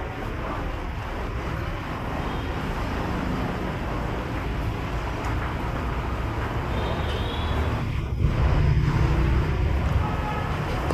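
Steady street traffic noise from passing engines, with a louder low rumble as a vehicle goes by about eight seconds in.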